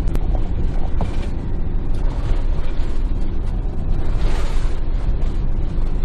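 Campervan cab noise on a bumpy, potholed road: a steady low rumble of engine and tyres with creaks and rattles from the van's interior fittings, and a sharp click right at the start.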